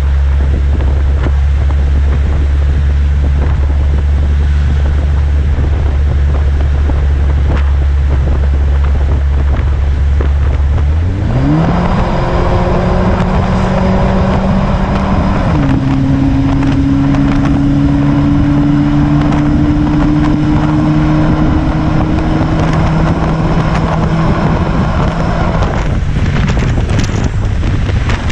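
Chrysler PT Cruiser's exhaust through a Gibson cat-back system, heard from outside the moving car. It drones low and steady, revs up quickly a little over a third of the way in, drops in pitch at a gear change, holds a steady higher drone that slowly climbs, then falls back to a low drone near the end. Wind buffets the microphone throughout.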